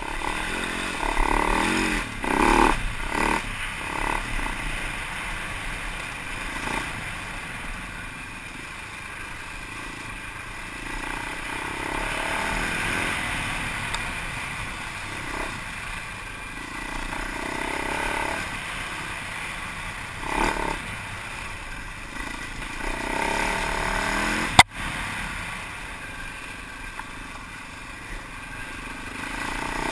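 Husaberg FE 390's single-cylinder four-stroke engine revving up and falling off again and again as the enduro bike rides a rough trail, with the bike clattering over the bumps. One sharp knock about three-quarters of the way through is the loudest sound.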